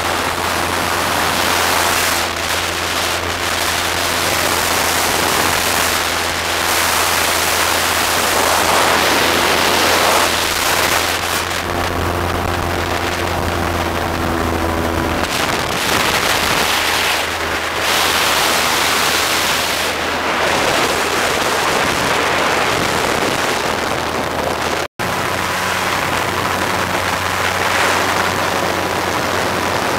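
Wind rushing over the microphone, with the steady drone of a motorboat engine underneath that fades out about halfway through.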